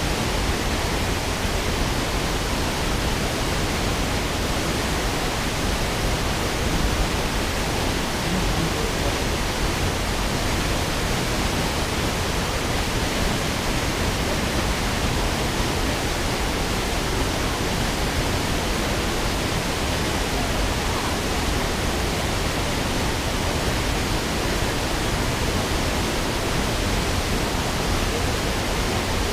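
Jōren Falls, a waterfall, plunging into its pool: a steady, unbroken rush of falling water with no change throughout.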